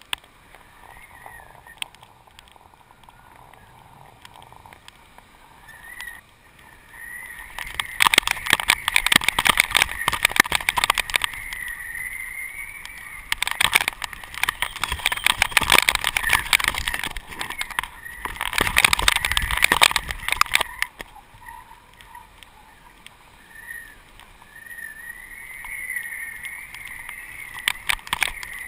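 Wind on a GoPro camera flown on a kite: a faint wavering whistling tone, broken by three long bursts of fast fluttering rattle as the rig shakes in gusts.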